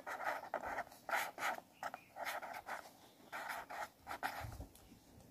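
Felt-tip marker scratching across paper chart in a run of short strokes as a word is handwritten, stopping about four seconds in.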